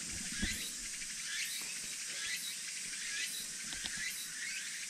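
Cicadas calling in a summer chorus: a steady high hiss, with a short rising chirp repeating almost twice a second.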